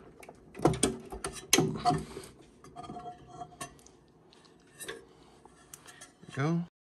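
Aluminium turntable platter being worked loose and lifted off its spindle: sharp metallic clinks and knocks, loudest in the first two seconds, then lighter scrapes and ticks. The platter binds on the spindle, which the repairer takes for the cause of the turntable's speed problem. Near the end there is a short rising sound, and then the audio cuts off.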